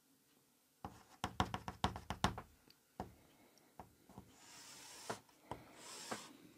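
Chalk writing on a blackboard: a quick run of taps and short strokes starting about a second in, then a few single taps and a longer hissing stroke about four seconds in.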